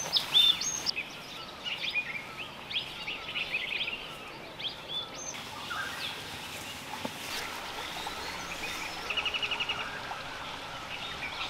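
Wild birds calling in forest: many short, high chirps and whistles in the first half, then a quick trill of about ten rapid notes late on.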